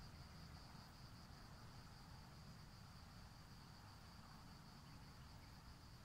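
Faint, steady high trill of crickets chirring, over low background hiss.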